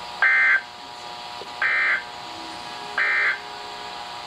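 Emergency Alert System end-of-message signal: three short, identical digital data bursts about 1.4 s apart, the SAME code that marks the end of an alert broadcast. A faint steady hum runs underneath.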